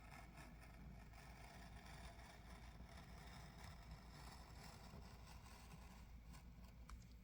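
Near silence: faint room tone with a low hum and a few light handling ticks near the end.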